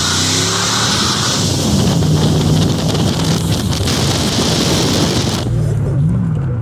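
A 1999 GMC Sierra pickup's engine pulling hard with a steady note, under loud wind noise rushing over the microphone. About five and a half seconds in, the wind rush drops away and the engine note briefly rises and falls.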